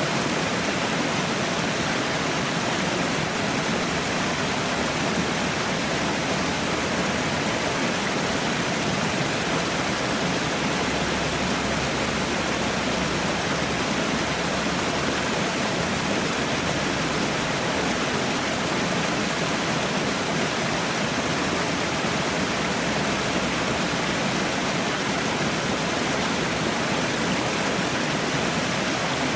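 Water falling and rushing in a steady, unbroken hiss, like a small waterfall or cascade.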